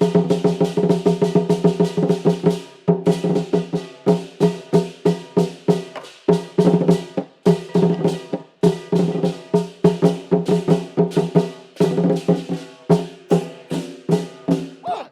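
Traditional percussion ensemble playing a fast, even rhythm of about four or five strikes a second over a ringing pitched tone, in phrases broken by brief pauses, stopping abruptly at the end.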